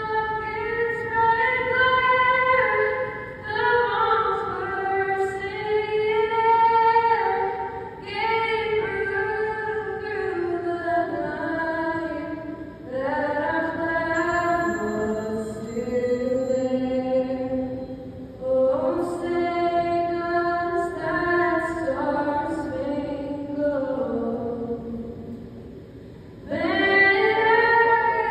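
A woman singing solo and unaccompanied into a handheld microphone, in long held notes that slide between pitches, pausing for breath a few times.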